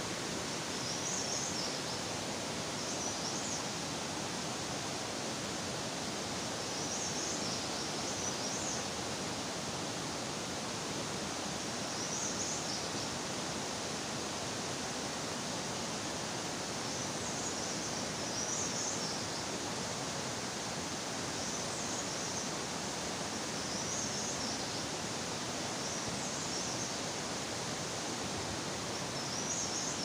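Steady rush of a rocky mountain stream running over rocks. Short high chirps come through about every two to three seconds.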